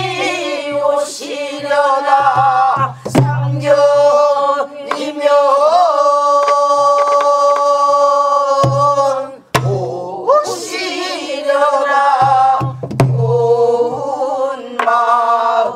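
A mixed group of voices singing a Korean Namdo folk song (minyo) together, holding one long note in the middle. A buk barrel drum struck with a stick keeps the rhythm, with a few sharp strikes and low thuds.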